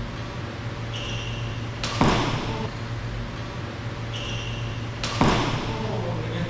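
Two loud badminton racket strikes on the shuttlecock about three seconds apart, each ringing briefly through the large hall, over a steady low hum.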